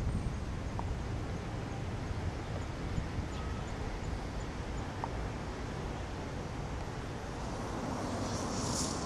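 Outdoor riverside city ambience: a steady low rumble of wind buffeting the microphone mixed with distant traffic, with a brief high-pitched chirring near the end.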